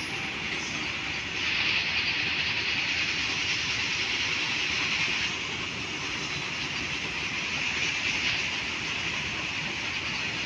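A loaded coal freight train's wagons rolling past, a steady rumble and rattle of wheels on the rails, a little louder for a few seconds from about a second and a half in.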